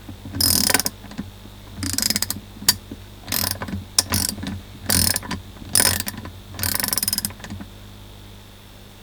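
KTC Nepros NBRM3 3/8-inch-drive 72-tooth round-head ratchet handle being swung back and forth, its pawl clicking rapidly over the fine gear teeth. This comes in about six short runs of fast clicks, with a few single clicks between them, and it stops about three quarters of the way through.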